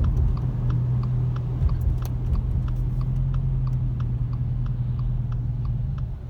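Car engine running with its muffler removed: a loud, steady, low exhaust drone heard from inside the cabin, which eases off near the end as the car slows. A light regular ticking, about three a second, runs along with it.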